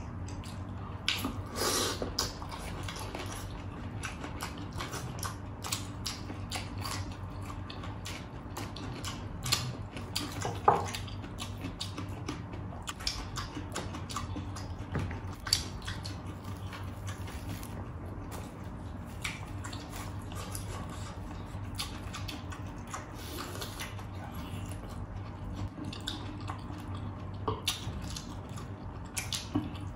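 Eating by hand: scattered small wet clicks and smacks of chewing and fingers handling food, loudest in a sharp click about eleven seconds in, over a steady low hum.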